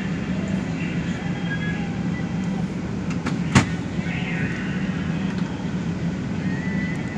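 Inside a moving commuter bus: steady engine hum and road noise, with one sharp knock a little past halfway.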